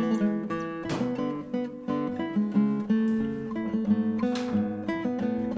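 Background music: a solo plucked acoustic guitar playing a piece of early music, with single notes and chords following one another.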